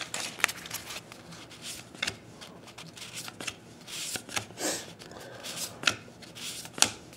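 A stack of 2012 Topps Gypsy Queen baseball cards being flipped through by hand: soft sliding rustles as card slides over card, with a few sharp flicks spread through.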